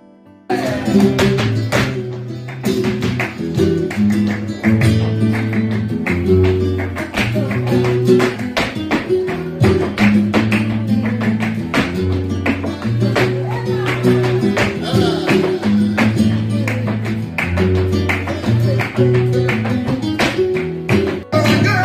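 Live flamenco: a Spanish guitar played with sharp rhythmic handclaps (palmas) and the dancer's footwork. It starts suddenly about half a second in.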